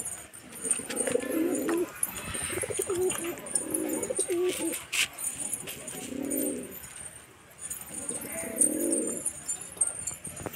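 Domestic pigeons cooing, low rounded coos repeating every second or two from several birds, with a few sharp clicks among them.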